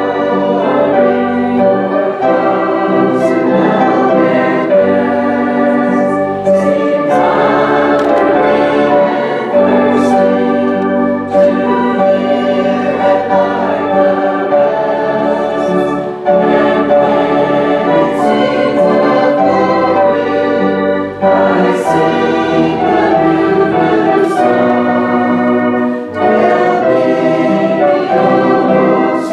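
A hymn sung by voices to organ accompaniment, with a woman's voice leading at the microphone. The organ holds sustained chords over deep bass notes, with brief pauses between sung lines.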